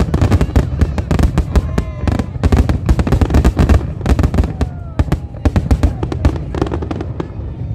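Fireworks going off in rapid succession: a dense run of sharp bangs and crackles, thinning out a little near the end.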